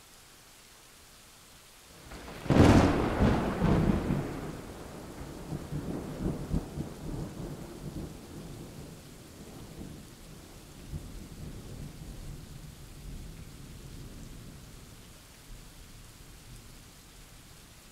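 A nearby thunderclap over steady rain: a sudden sharp crack about two seconds in, followed by a long, low rolling rumble that slowly fades away.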